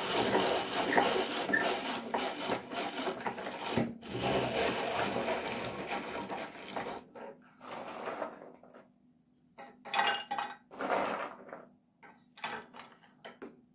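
Walnuts being ground in a hand-cranked rotary drum grater, making a steady rasping scrape while it is cranked fast. After about seven seconds it breaks into short separate bursts of grating.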